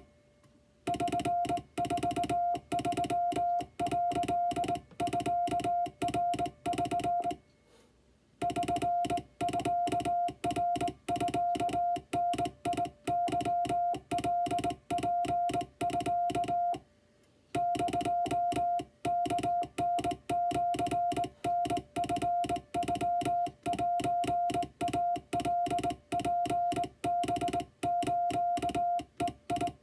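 Japanese wabun Morse code hand-sent on a straight key: a steady beep keyed on and off in quick dots and dashes, broken by three short pauses of under a second between groups.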